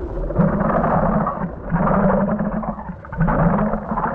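Harsh noise music: a dense, distorted wall of noise with a low droning layer, coming in three surges of about a second each.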